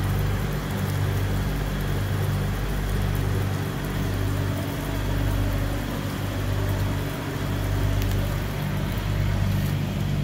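Truck engine idling steadily, with rain falling around it.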